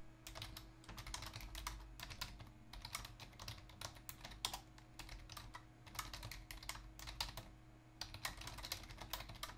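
Typing on a computer keyboard: quick runs of light keystrokes with a few brief pauses between them.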